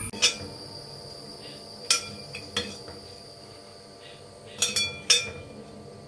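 A spatula clinking against a glass serving bowl as stir-fried food is scooped in: about six sharp clinks with a short ring, with a cluster of them about three-quarters of the way through. A faint steady high-pitched tone sits underneath.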